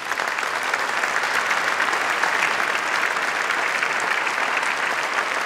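Audience applauding, steady sustained clapping from a large seated crowd.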